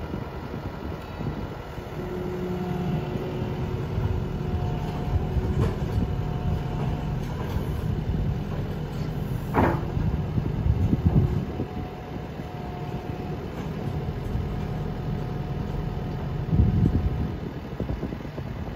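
Kubota SVL compact track loader's diesel engine running under load, picking up about two seconds in, with a hydraulic whine coming and going over it and a short sharp squeal about halfway through.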